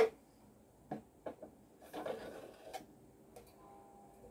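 Large wooden bobbins for an Ashford Super Jumbo e-spinner knocking together as they are handled: one sharp knock at the start, a few lighter knocks about a second in, then wood rubbing on wood.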